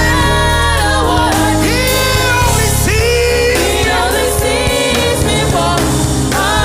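Gospel worship music: voices singing long, sliding notes over a band with a steady low bass.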